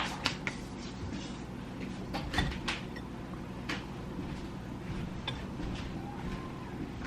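A spoon knocking and clinking irregularly against a mixing bowl as dry cupcake ingredients are stirred slowly by hand.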